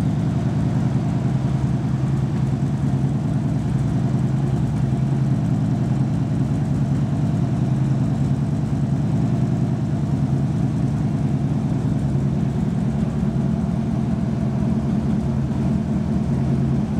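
2011 Harley-Davidson Road King's air-cooled V-twin idling steadily with an even, thumping beat while an engine-flush chemical circulates through it; the idle has changed and the engine is running smoothly.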